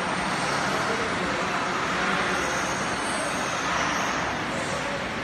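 Nine-colour film printing press running, a steady, even machine noise with no change in pace.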